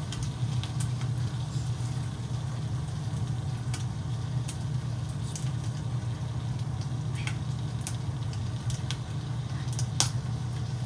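A steady low mechanical hum, with scattered sharp clicks and pops over it; the loudest click comes about ten seconds in.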